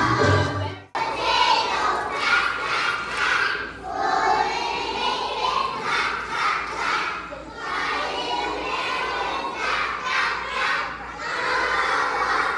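Backing music cuts off about a second in, then a group of young children call out together in many overlapping voices.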